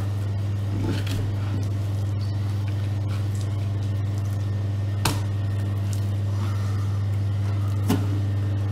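A steady low hum at an even level, with two sharp clicks about five and eight seconds in.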